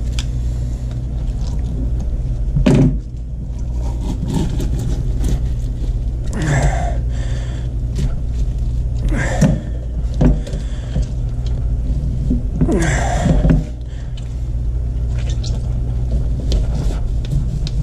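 Burbot skin being pulled off the fish by hand: a few short rubbing and tearing noises, about five in all, over a steady low hum.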